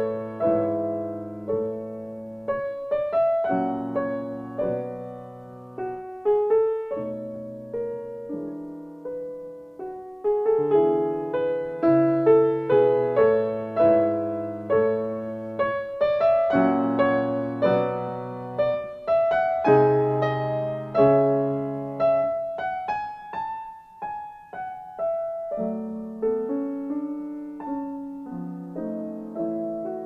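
Background piano music: a slow, gentle piece of struck chords and melody notes, each note ringing and fading before the next.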